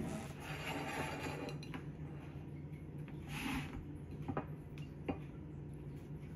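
Quiet handling noises: a few light clicks and clinks from a small ceramic plate as a frozen coconut ice pop is lifted off it, over a steady low hum.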